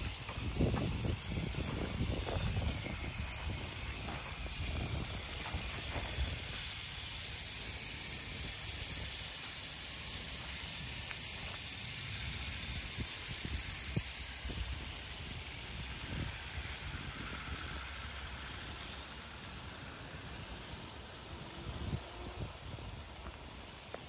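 Several battery-powered JAKKS Pacific PowerTrains toy diesel locomotives running on plastic track, giving a steady whirring hiss from their small motors and wheels.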